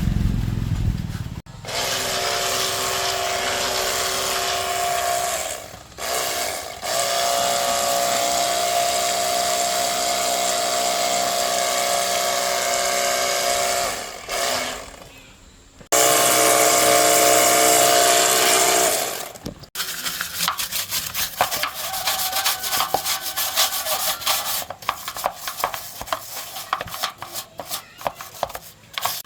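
A workshop tool running in three long bursts, each a steady hissing whine that stops abruptly, followed by rapid, irregular scraping strokes near the end.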